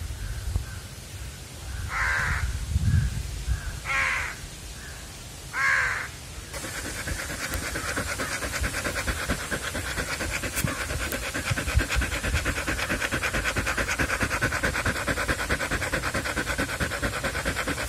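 A crow cawing three times, about two seconds apart, with shorter, fainter calls between. About six seconds in, this gives way to a dog panting rapidly and steadily.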